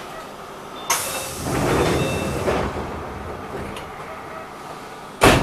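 Sliding doors of an Enshu Railway 2000-series electric train working at a station stop: a sharp hiss of air about a second in, then a rumble as the doors move, and a loud short burst near the end.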